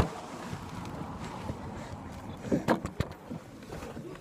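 Handling noise: a phone's microphone rubbing and bumping against clothing, a steady muffled rumble with a knock at the start and another about three seconds in.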